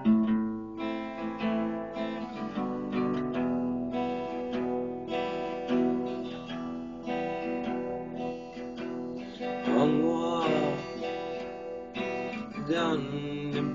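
Acoustic guitar playing chords in an instrumental passage of a song, notes ringing steadily, with a brief voice-like sound with a bending pitch about ten seconds in and again near the end.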